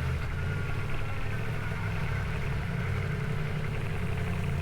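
Yamaha MT-10's crossplane inline-four engine running steadily at low revs.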